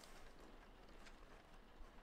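Near silence, with a faint rustle of a stack of transfer paper sheets being slid and squared by hand, and a couple of faint ticks.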